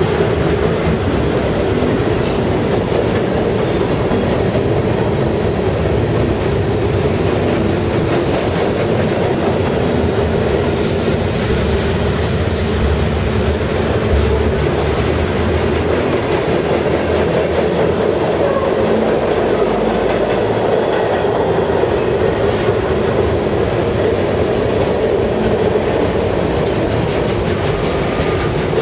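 Freight train of boxcars, tank cars and covered hoppers rolling steadily past: continuous noise of steel wheels on the rails with a quick clickety-clack over the rail joints.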